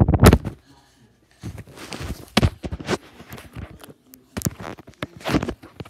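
Thumps and knocks with rustling in between, from a handheld phone being jostled as a boy moves and jumps about; the loudest thump comes right at the start.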